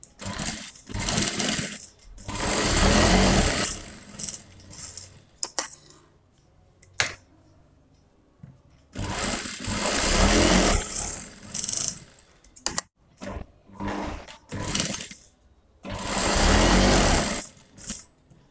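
Industrial single-needle lockstitch sewing machine stitching a folded hem in cloth. It runs in several bursts of one to three seconds and stops briefly between them while the fabric is repositioned.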